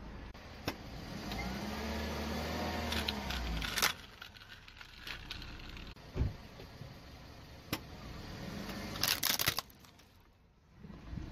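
A car engine runs for a couple of seconds, its pitch rising and then falling as the car rolls. Sharp cracks of plastic toys breaking under the car tyre follow: a loud one about four seconds in and a quick cluster of cracks about nine seconds in.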